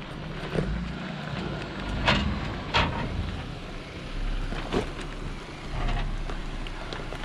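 2020 Jeep Gladiator Rubicon crawling over a rock ledge, its engine rumbling low at slow speed. Four sharp knocks as the tyres come over the rock, the loudest about two and three seconds in.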